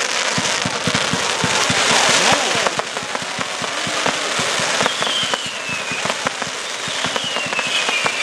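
Multi-shot firework barrage firing a rapid string of sharp pops over a steady crackling hiss, the shots coming several a second. From about halfway, high falling whistle-like tones come through several times.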